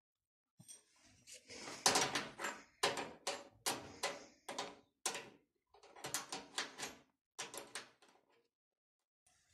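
Repeated short scraping strokes, about two a second, as a washing machine's adjustable leg is turned by hand in the threaded hole in the cabinet's base.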